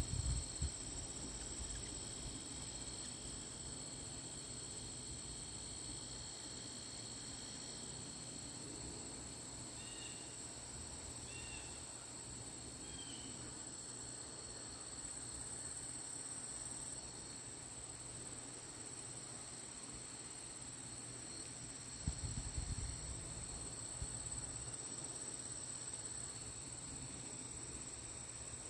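Steady chorus of insects singing at several constant high pitches, one of which fades out about eight seconds in. A brief low rumble comes about twenty-two seconds in.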